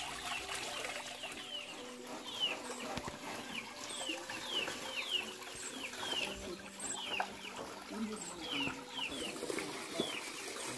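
Chicks peeping: short, high, falling calls, about two or three a second. Under them, water from a pipe spout splashes into a woven basket of rice being washed.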